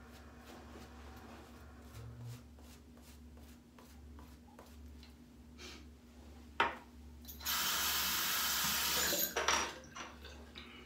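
Double-edge safety razor with a Voskhod blade scraping stubble in faint short strokes. About six and a half seconds in there is a sharp knock, then a tap runs for about two seconds as the razor is rinsed, with a few light knocks as the water stops.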